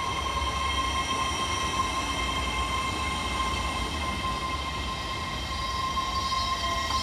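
Hitachi Class 802 train at the platform: a steady high whine over a low rumble. Near the end a fainter tone starts sliding down in pitch.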